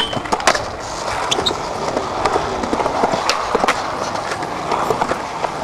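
Skateboard urethane wheels rolling on smooth concrete, with a metal handrail grind at the start and many sharp clacks and knocks of the board's tail and trucks scattered through.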